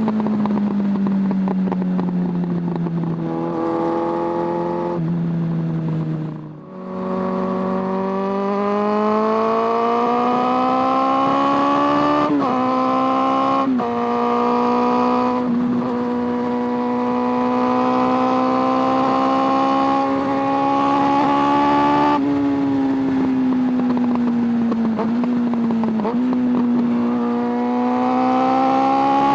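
Suzuki Bandit 600's carbureted inline-four running under way. The note falls off on a closed throttle and briefly goes nearly quiet about six seconds in. It then climbs again, with three quick upshifts, holds steady at cruise, eases off and climbs once more near the end.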